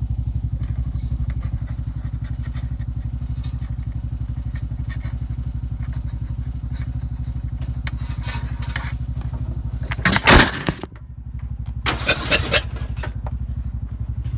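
Riding lawnmower engine with a straight-pipe exhaust idling steadily with an even, rapid pulse. A loud clatter about ten seconds in and a few sharp knocks about two seconds later stand out over it.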